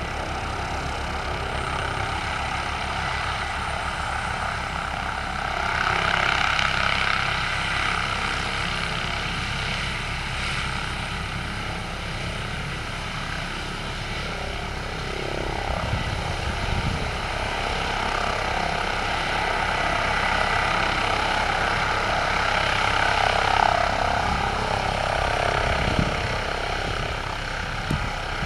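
Airbus ACH145 (BK117 D-3) twin-turboshaft helicopter lifting off and hovering low: a steady main-rotor beat under the whine of its turbines, growing louder twice as it moves.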